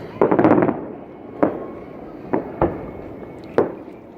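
Aerial fireworks bursting: a dense crackling burst just after the start, then four sharp bangs spaced roughly a second apart.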